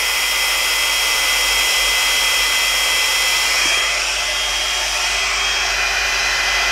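GHD Duet Style hot-air straightener running, its fan blowing a steady rush of air with a thin high whine as it dries a strand of wet hair. The hiss softens slightly about four seconds in.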